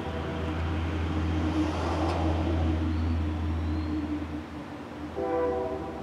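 Passing train, its low rumble running steady with a swell of rolling noise about two seconds in. The rumble drops away after about four seconds, and the train's horn sounds a short chord about five seconds in.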